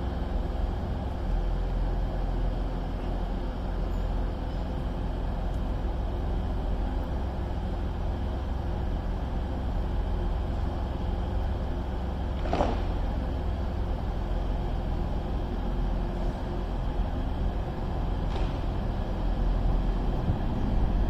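Class 158 diesel multiple unit running into the platform, its diesel engines giving a steady rumble, with a short squeal about twelve seconds in.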